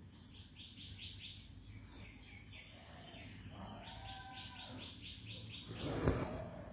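Birds chirping in two quick runs of short, evenly repeated calls, with some lower calls in between. A brief loud rustling burst comes about six seconds in.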